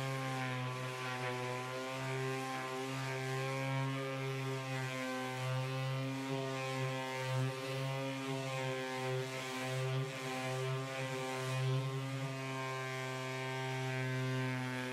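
Electric orbital sander running with a steady hum, its pad sanding the old painted coating off the top of a cabinet.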